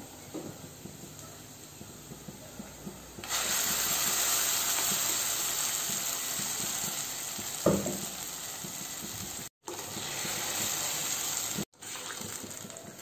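Wet ground-coconut masala paste poured into hot oil and fried onions in a steel pot. After a few faint crackles, a loud, steady hiss of pouring and sizzling starts suddenly about three seconds in, with a single knock midway.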